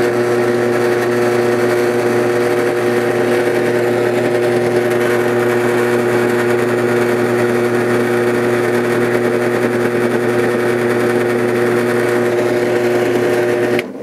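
Drill press motor running steadily, spinning a four-pin shotshell roll crimper down onto the mouth of a 12-gauge hull to form a roll crimp; it stops abruptly shortly before the end.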